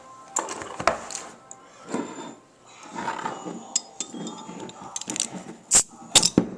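Clinks and knocks of glass and tableware being handled on a table, including the San Mig Light beer just announced. Scattered sharp clicks, with the loudest a little before the end.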